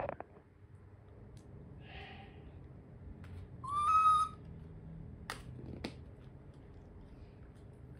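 Baby macaque giving one short, high, whistle-like coo about halfway through, its pitch rising slightly. Two light clicks follow about a second later.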